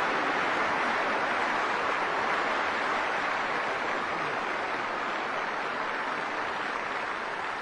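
Audience applauding, a dense, steady clapping that slowly thins toward the end.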